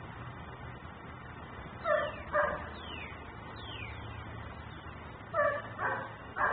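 German shepherd barking: two barks about two seconds in, then three more near the end.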